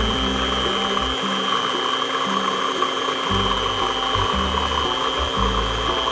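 Electric food processor running steadily with a high motor whine, puréeing chopped fruit and vegetables, over background music with a bassline.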